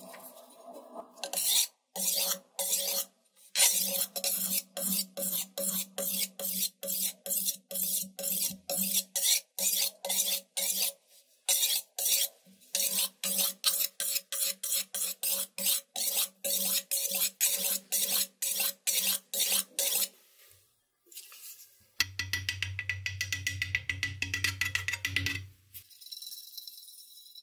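A sharpening stone scraping in repeated strokes along the edge of a steel cleaver blade, about two strokes a second, the blade ringing faintly with each stroke. Near the end a different continuous rasping sound follows, then brisk scrubbing with a toothbrush on the metal.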